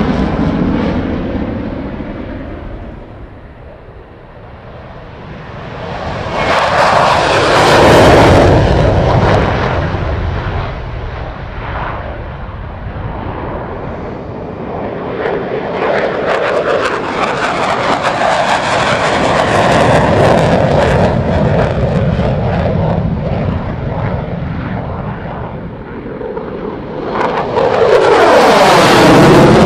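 F-16 fighter jet engine noise during flybys. It fades as the jet flies away with its afterburner lit, swells to a loud pass about eight seconds in, and stays loud. Near the end it rises to another loud pass close overhead, with a sweeping change in tone.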